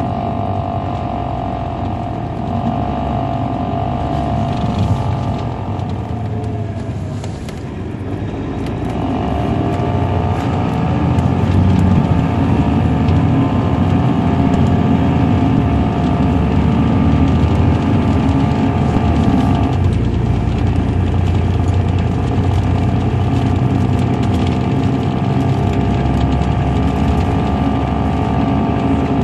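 Caterpillar C13 diesel engine of a 2007 MCI D4500CL coach, heard from on board while driving. The engine note bends in pitch, drops about eight seconds in, then comes back louder and holds steady as the coach pulls.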